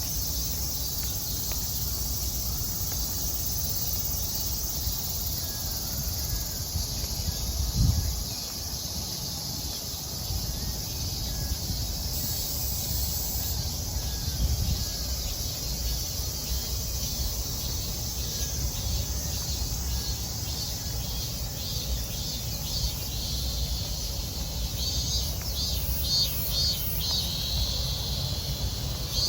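Cicadas shrilling in a steady high drone, with a faster rhythmic pulsing call coming in over it near the end. A steady low rumble sits underneath, with a brief low thump about eight seconds in.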